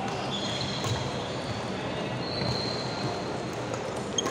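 Steady noise of a busy badminton hall, with high-pitched squeaks of court shoes on the wooden floor, twice, each up to a second long. A single sharp tap near the end.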